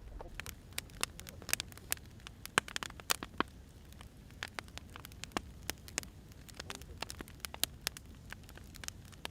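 Burning firewood crackling: irregular sharp pops and snaps, several a second, over a low steady rumble.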